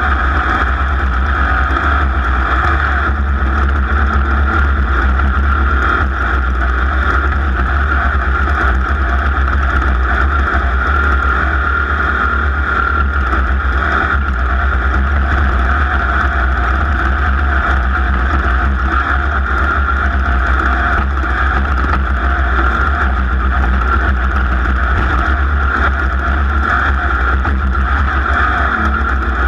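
Racing machine's engine running steadily at speed, with a heavy low rumble throughout.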